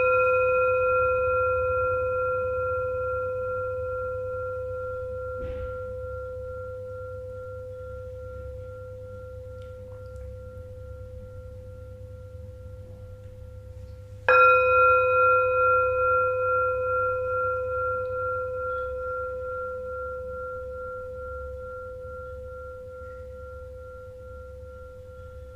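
A singing bowl struck and left to ring: a long, slowly fading tone with a gentle pulsing beat, struck again about 14 seconds in and ringing out once more.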